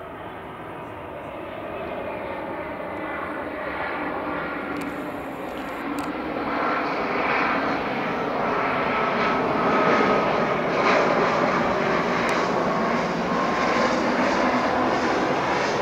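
Dassault Falcon 7X trijet on approach to land, its three Pratt & Whitney PW307A turbofans whining and rushing, growing louder as the jet comes closer. A steady engine whine that sinks slightly in pitch runs through the loudest part.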